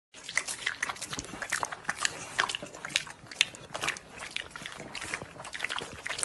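Wet chewing and smacking mouth sounds, an irregular run of short clicks and smacks several times a second.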